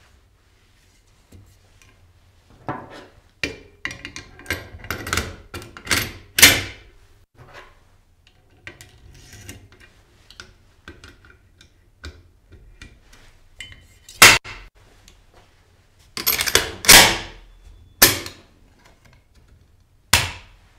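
Metal clicks, scrapes and clacks of an AK-74M being reassembled by hand as the bolt carrier, recoil spring and dust cover go back on. A busy run of clacks comes a few seconds in, with sharp loud snaps about midway and near the end.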